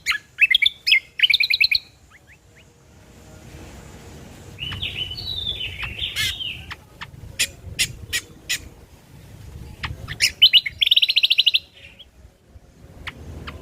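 Cucak kombo (kecial kombo) songbird singing. Sharp high single chirps are mixed with short rattling trills, a scratchy jumbled phrase about halfway through, and a fast even trill near the end.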